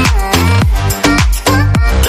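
Electronic dance music with a steady, fast beat and a heavy bass line.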